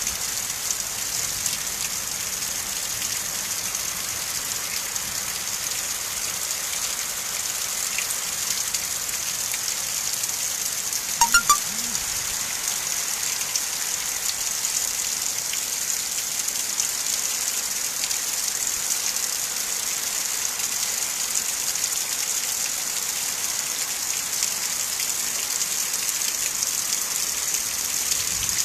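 Steady hiss of heavy rain driven by a windstorm. About eleven seconds in, three short, loud knocks stand out over it.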